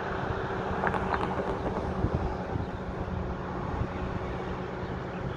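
Diesel engine of a DSC-class shunting locomotive running steadily with a low hum. A few short knocks come about one and two seconds in.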